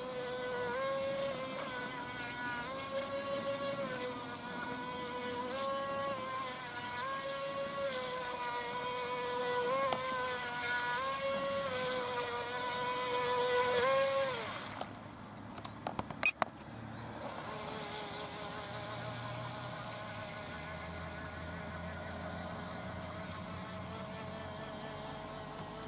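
Small electric motor of a DEERC RC boat whining at high pitch, the pitch stepping up and back down every couple of seconds as the throttle is worked. About fifteen seconds in the whine drops away, a few sharp clicks follow, then a steadier, slightly lower whine runs on.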